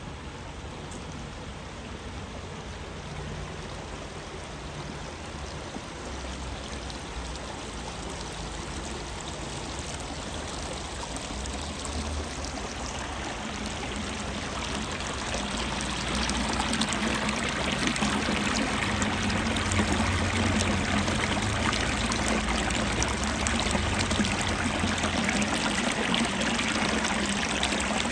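Running water of a small stream, a steady rushing and trickling that grows louder over the middle of the stretch and then holds steady.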